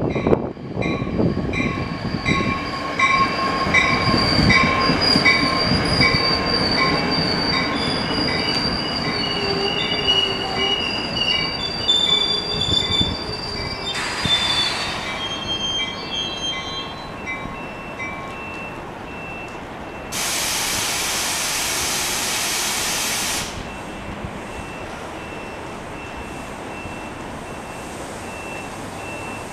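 NJ Transit Comet V train rumbling in and braking to a stop, its wheels and brakes squealing in several high steady tones that die away over the first half. A brief hiss of air follows midway, then a louder hiss of air lasting about three seconds.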